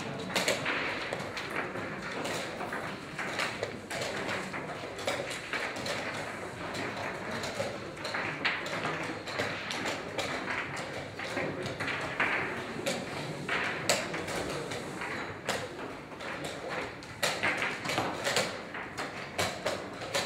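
Wooden chess pieces set down on the board and chess clock buttons pressed in a fast blitz game: irregular knocks and taps over steady room noise.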